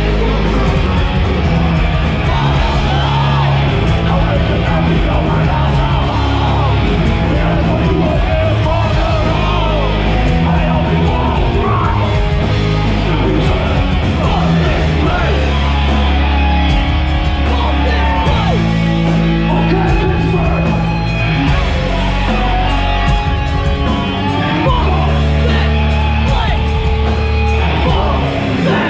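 Heavy metal band playing loud live, with guitar, drums and yelled vocals over shifting bass notes.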